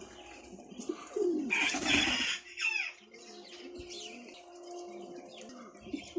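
Pigeons cooing in low, repeated calls, with smaller birds chirping in the background.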